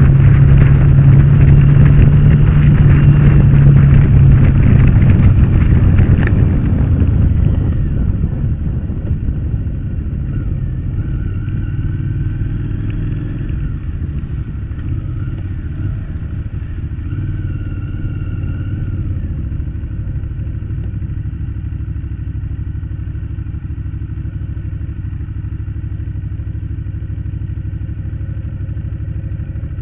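Motorcycle riding at speed with the engine and wind noise loud. About six or seven seconds in, the engine eases off and the bikes slow to a stop, settling into a steady idle.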